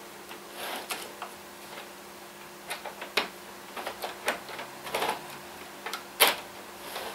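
Irregular clicks and taps of 00 gauge model locomotives being handled and set down on the track, over a faint steady hum.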